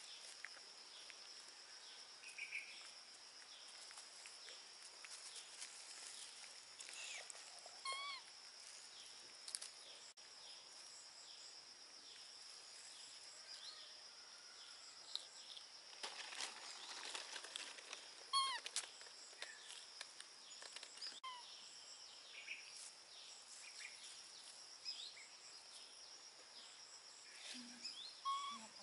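Faint steady insect drone with a few short squeaky calls from baby macaques, the clearest about eight seconds and eighteen seconds in, over light rustling of grass.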